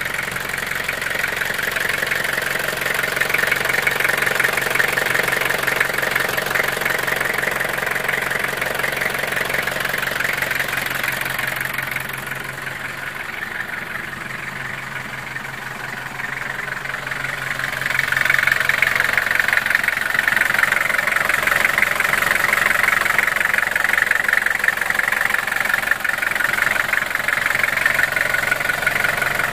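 The engine of a 2001 Toyota Toyoace light truck running steadily at idle, with a constant busy clatter. It grows louder about two-thirds of the way through.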